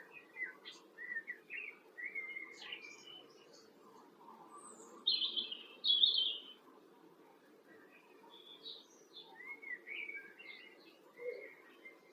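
Garden songbirds singing and chirping: a string of short, varied warbling phrases, loudest in two bursts about five and six seconds in, over a faint steady low background rumble.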